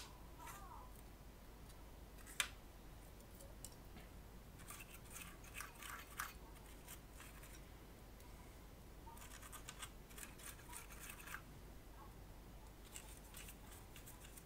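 Faint scratchy scrubbing of a small brush's bristles on a circuit board wet with isopropyl alcohol, in three short spells, with a single sharp click about two and a half seconds in.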